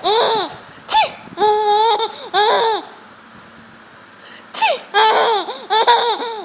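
A six-month-old baby's high-pitched laughter in short bursts, set off by fake sneezes. It breaks off for about a second and a half midway, then starts again.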